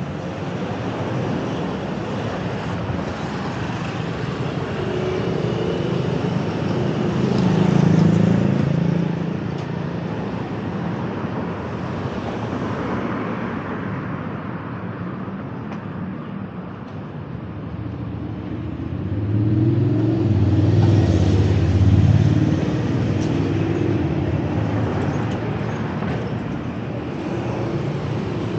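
Road traffic going by: a steady wash of engines and tyres, with louder vehicles passing about eight seconds in and again around twenty to twenty-two seconds.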